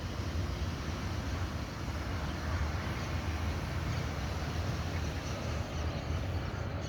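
Steady rain falling, an even hiss with a low steady rumble underneath.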